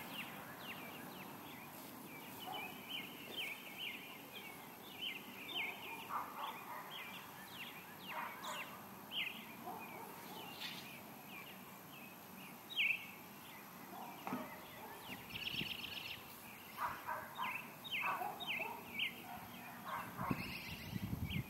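Wild birds chirping and singing, many short high chirps scattered throughout, with one sharper chirp about two-thirds of the way in.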